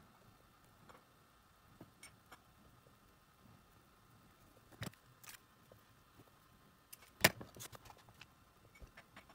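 Scattered small clicks and taps of metal tweezers and fingers handling thin wires on a small circuit board, with a sharper click a little after seven seconds in.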